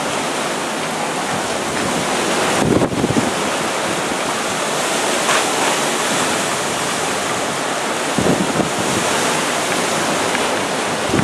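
Thunderstorm wind and rain: a steady, loud rushing hiss, with gusts buffeting the microphone about three and eight seconds in.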